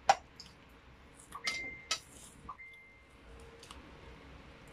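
Spoon and cutlery clinking against a stainless steel serving bowl and plates: a sharp clink at the start and two more about a second and a half in, followed by a brief high ringing tone.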